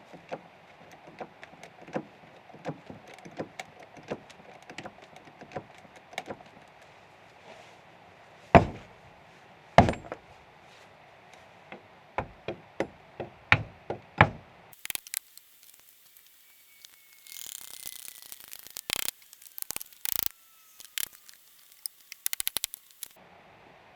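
Irregular knocks and thuds of wood being struck during log-timber work, with two much louder blows about nine and ten seconds in. After about fifteen seconds the sound changes to a run of sharper clicks and rattles.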